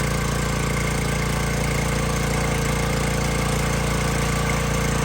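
Small gasoline engine of a pressure washer running steadily as it warms up just after a cold start on the choke.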